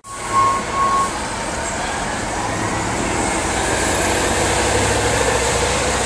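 A CNG-powered Orion V transit bus pulling away from a stop, its engine and drivetrain sound building steadily with a rising whine as it accelerates. Two short high beeps sound in the first second.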